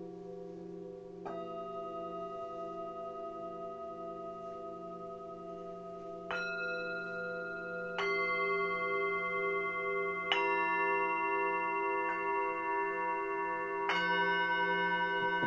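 Tibetan singing bowls struck one after another with a mallet, about six strikes, each bowl ringing on so that the tones build up into a layered chord. Some tones waver with a slow beat, and low tones from earlier strikes hum underneath.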